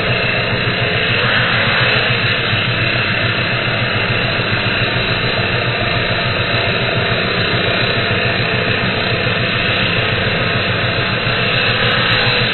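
Handheld angle grinder with a cutting disc running steadily under load as it cuts through thick steel on an excavator arm, with a constant motor hum beneath the grinding.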